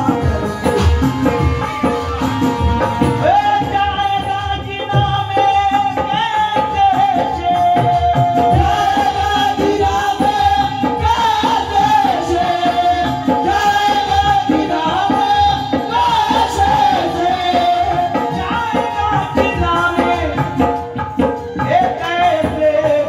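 Live qawwali: a melodic vocal line bending in pitch, sung over harmonium with steady hand-drum accompaniment.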